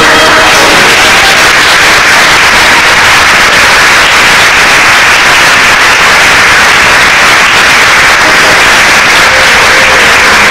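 The last notes of the show's music stop about half a second in, and a theatre audience applauds loudly and steadily. Music starts again near the end.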